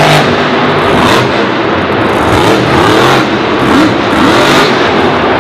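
Dragon monster truck's supercharged V8 engine revving hard, its pitch rising and falling again and again as the truck rears up on its rear wheels.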